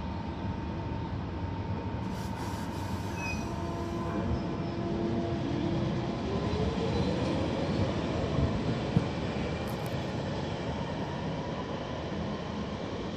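London Underground 1992 Stock tube train pulling out of a station: rolling wheel-on-rail noise, with the traction motors' whine rising in pitch as it gathers speed and draws away.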